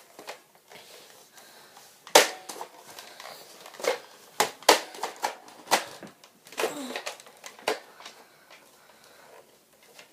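Irregular sharp plastic clicks and clacks of a Buzz-Bee toy dart blaster being worked by hand. The blaster is jammed.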